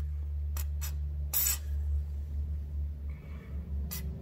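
Aerosol can of WD-40 white lithium grease giving about four short hisses as it is dabbed into a car door hinge. The third spray, a second and a half in, is the longest.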